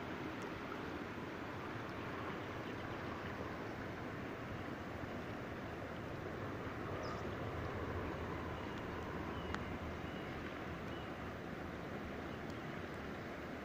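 River water flowing over shallow riffles, a steady rushing hiss.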